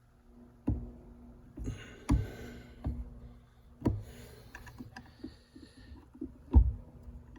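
Irregular knocks and clicks of hands working metal and plastic parts into a car's short shifter assembly, with short bouts of rustling; the loudest knock comes near the end. A faint steady hum runs underneath.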